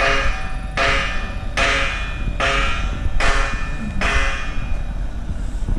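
Metal being struck in a steady rhythm: six evenly spaced blows about 0.8 seconds apart, each ringing briefly.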